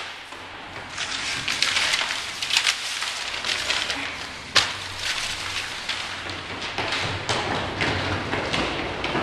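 Paper rustling and crinkling in repeated bursts, with a single sharp tap about halfway through.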